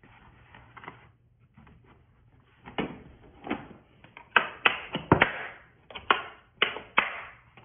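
A hard plastic screwdriver-set carrying case being closed: a soft rustle as the foam-lined lid and insert are moved, then a series of sharp plastic clicks and knocks, about nine, as the lid is pressed down and the orange latches are snapped shut.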